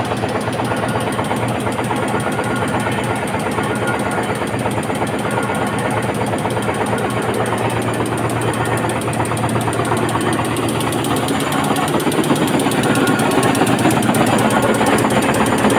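Industrial multi-needle tufting machine running, a loud, steady mechanical clatter with a fast, even rhythm, a little louder near the end.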